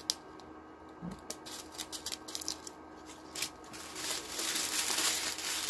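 Small plastic packets of diamond-painting drills being handled: a soft thump and a few light clicks, then from about four seconds in a steady crinkling of plastic. A faint steady hum from an electric boot and shoe dryer runs underneath.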